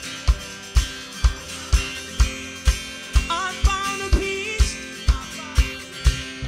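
Live worship band playing an instrumental passage: a steady kick drum about two beats a second under held chords, with a short melodic line about halfway through.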